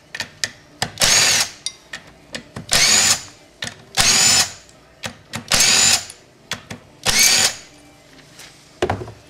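Cordless power driver spinning bolts out of a transmission case in five short bursts, about one every second and a half, its motor whine rising and falling with each trigger pull. Light metallic clicks fall between the bursts.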